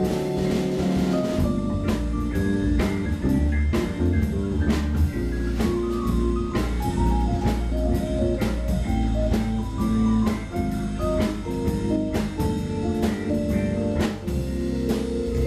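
Jazz-fusion band playing live: an electric bass plays changing low notes over a drum kit keeping a steady beat, with guitar and keyboard also in the band.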